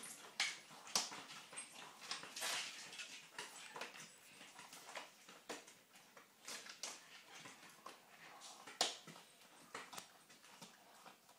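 Dogs gnawing and crunching on dried pig's ears: irregular faint crunches and clicks, with one louder crunch about nine seconds in.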